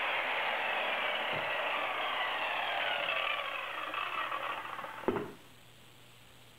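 Porter-Cable circular saw running through a cut, then winding down after about three and a half seconds as the trigger is let go. A single thump about five seconds in as the saw is set down.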